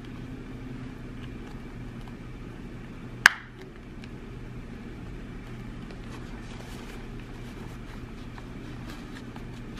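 A single sharp plastic click about three seconds in as the sunglasses frame and lenses are handled, followed later by a few faint small ticks, over a steady low hum.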